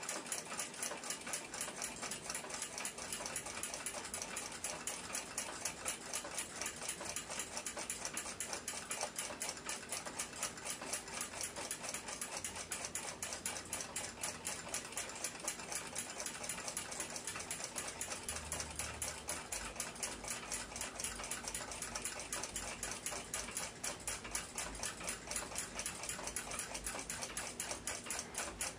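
Mechanical clock ticking quickly and steadily, about four to five ticks a second, with faint handling noise in the second half.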